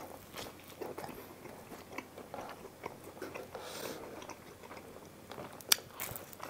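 Close-up chewing of a pizza slice: a steady run of small wet mouth sounds and light crunches of crust. Near the end comes one much louder, sharp crunch as a fresh bite is taken.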